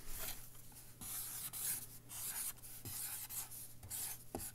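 Marker writing on a surface: faint scratchy strokes in several short spurts.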